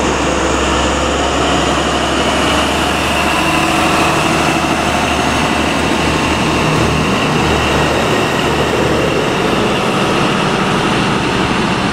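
Class 43 HST power car's Paxman VP185 diesel engine working hard as the train pulls away from the platform: a loud, steady drone with a high whine over it, while the coaches rumble past on the rails.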